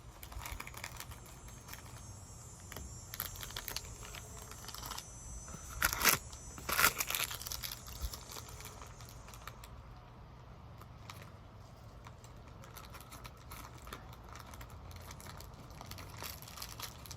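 Cicadas buzzing in a steady high drone that fades out about halfway through, under scattered clicks and crinkling handling noises, with two louder rustles about six and seven seconds in.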